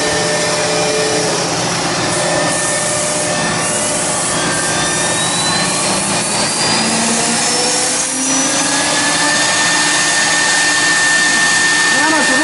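CNC router running after start-up: a steady rushing machine noise with a whine that rises in pitch over a few seconds, as a spindle spins up, then a steady high whine from about two-thirds of the way in.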